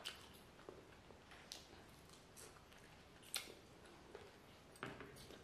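Faint chewing of noodles, with a handful of short, scattered wet mouth clicks and smacks.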